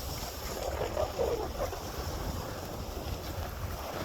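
Wind buffeting the microphone, a steady low rumble, during a downhill ski run, with the swish of skis sliding over snow.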